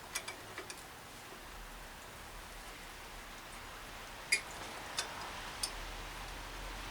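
Steady rain patter, with a few light ticks at first and three sharp clicks a little past halfway from the bottom bracket cup and tool being worked.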